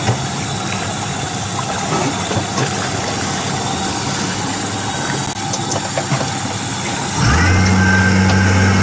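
Yamaha 90 outboard motor idling, then throttling up suddenly about seven seconds in to a much louder, steady run as it starts towing the shrimp trawl.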